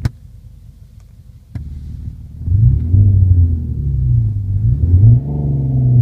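Renault R-Sound Effect RS synthetic sports-car engine sound played through the car's cabin speakers: a low hum with a couple of clicks at first, then from about two and a half seconds in a loud engine note that rises and falls in pitch as it is revved.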